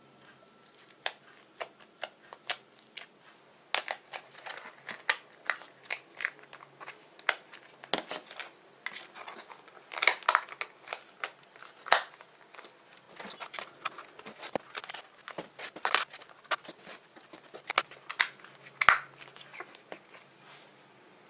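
Fluffy slime being handled, giving off many short, irregular pops and crackles, thickest through the middle and thinning out near the end.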